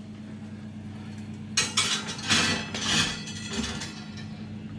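Cast iron griddle being slid onto the metal oven rack: a quick run of metal clattering and scraping knocks about a second and a half in, lasting around two seconds, over a steady low hum.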